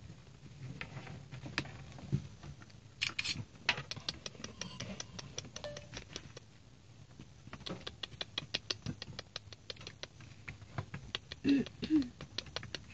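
A puppy's metal chain leash clinking and rattling as the dog moves and climbs. The clinks come in quick runs of small clicks, with pauses between.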